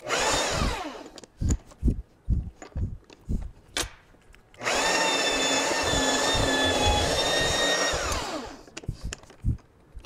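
Magnetic drill's electric motor winding down, then several knocks and clicks, then the drill running for about three and a half seconds as the twist bit bores into the steel plate, winding down again near the end.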